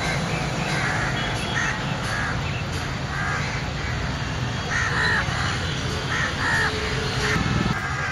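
Crows cawing, a series of short harsh calls repeated irregularly throughout, over a steady low background rumble.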